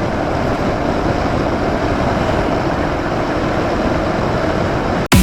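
Motorcycle on the move: steady engine and road noise mixed with wind rushing over the microphone, cutting off abruptly near the end.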